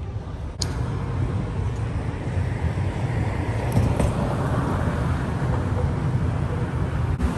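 City street traffic noise: cars running along the street with a steady low rumble, swelling in the middle as a vehicle passes.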